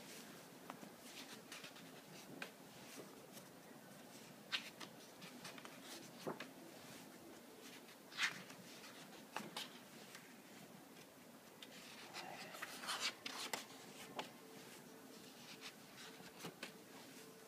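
Faint paper handling on Moleskine sketchbook pages: scattered soft rustles and light taps of fingers on the paper, with a longer burst of rustling as a page is turned over.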